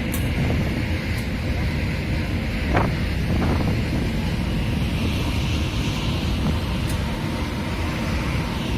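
Steady wind buffeting the microphone on the open deck of a moving cruise ship, over a constant low rumble, with one brief knock about three seconds in.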